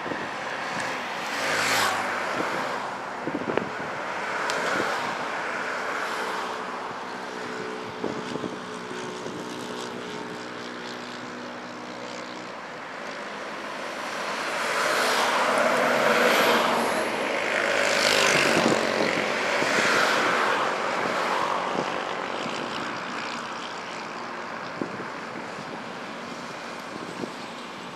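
Jet engines of an Embraer E-Jet airliner running as it moves along the runway, a steady hum mixed with road traffic passing close by. Several vehicles swell and fade, the longest and loudest pass about halfway through.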